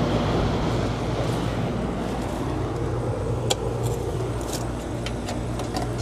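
Goodman outdoor air-conditioner unit running: a steady compressor hum with the condenser fan turning slowly on a failed run capacitor. A sharp click comes about three and a half seconds in.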